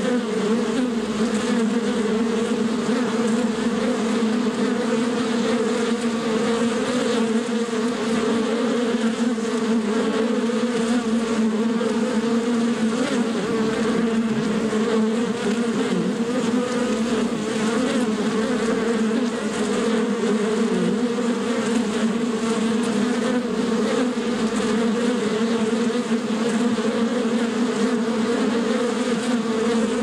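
Many honeybees buzzing together in a steady, unbroken drone: a low hum with a strong overtone above it.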